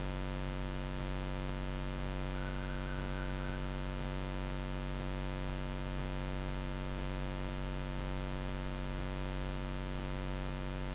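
Steady electrical hum with many overtones, unchanging throughout: the trail camera's own electronic noise picked up by its built-in microphone.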